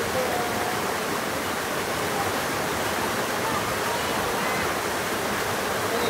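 Small waterfall spilling over boulders into a shallow stream pool: a steady rush of falling, splashing water.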